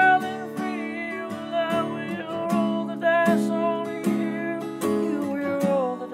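Acoustic guitar strummed steadily with a man singing over it, a live solo song performance.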